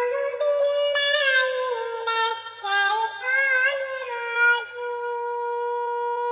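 Synthetic cat-voice singing: a meow-like voice chants a melody in the style of Quran recitation, then settles into one long held note a little past halfway.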